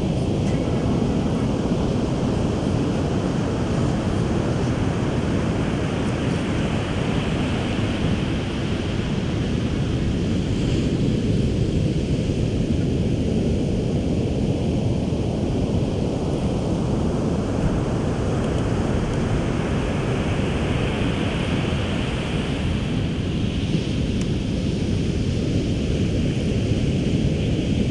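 Ocean surf breaking and washing up a beach, with wind buffeting the microphone in a steady low rumble. The hiss of the surf swells and fades twice.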